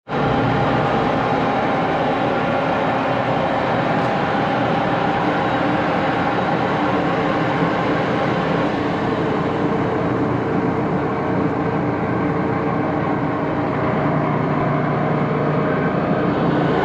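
Large engine lathe running with a big faceplate spinning on its spindle: a steady mechanical whirr from the headstock gearing and motor, with a few steady tones in it, starting suddenly.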